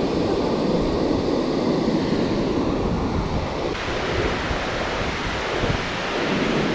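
Steady rushing noise of wind on the microphone over moving river water.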